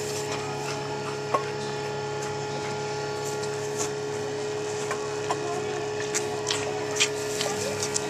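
A calf sucking milk from a large plastic bottle's rubber nipple, with scattered small clicks and rubbing as the bottle moves against the pen's bars, over a steady hum.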